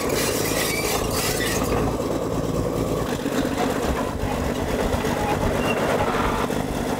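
Old Caterpillar D8 bulldozer running and moving, its diesel engine working under load while the steel tracks clank and squeal. One track is binding up, which the owner puts down to a broken final drive. The engine note changes about three seconds in.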